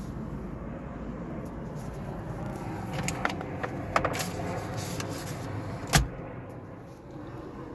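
Plastic dashboard glove box of a 1990 Mitsubishi Delica L300 being handled: a few light clicks and rattles around three to four seconds in, then the lid shut with one loud thump about six seconds in, over a steady low hum.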